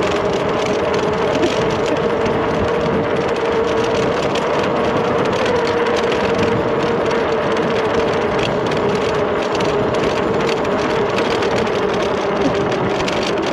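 Electric bike motor whining steadily at speed under a wide-open run, over a constant rush of wind and road noise.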